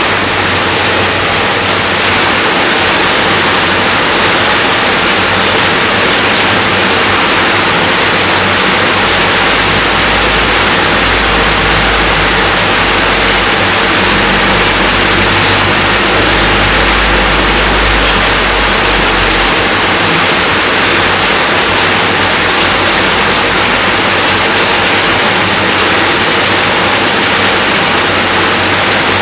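Steady, dense rainfall, a loud even hiss, with a low rumble underneath for about ten seconds in the middle.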